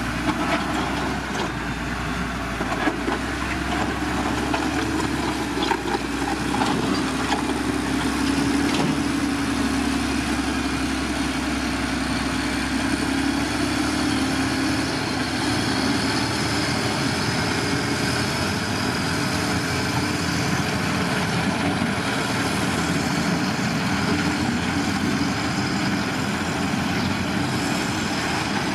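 Diesel engine of heavy road-construction machinery running steadily, with a few sharp knocks in the first several seconds.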